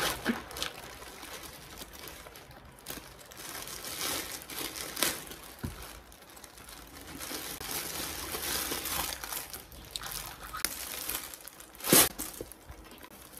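Plastic parcel packaging crinkling and rustling as it is cut open with scissors and unwrapped by hand, with scattered small clicks. A single sharp click about twelve seconds in is the loudest sound.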